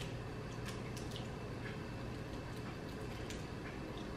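Wet eating sounds of a cooked crab being picked apart by hand and eaten: a scattering of small clicks and smacks, about half a dozen, over a steady low hum.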